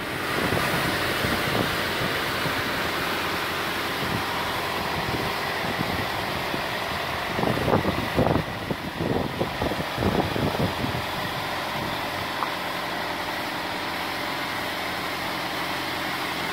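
Tractor-mounted Mazaka boom solar-panel washer running steadily: engine and drive hum under a hiss, as its rotating brush sprays and scrubs the panels. An uneven low rumble comes and goes in the middle for a few seconds.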